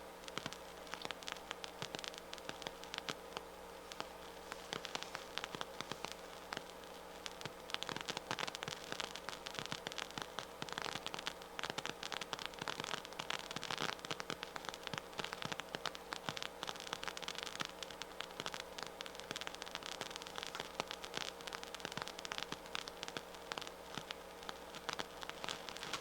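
Hiss with crackling and popping from a loudspeaker on the right channel of a Harman Kardon 730 receiver: the noise of a failing transistor ('transistoritis'), which the repairer puts down to a power supply or power amplifier problem. The crackling gets denser about seven seconds in, over a faint steady hum.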